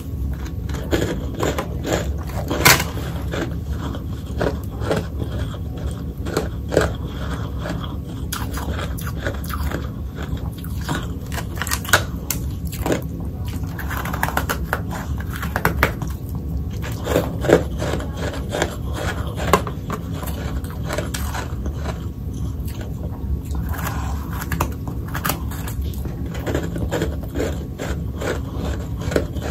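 Close-miked mouth biting and crunching hard ice, with irregular sharp crunches, clusters of chewing and some scraping between bites. A steady low hum runs underneath.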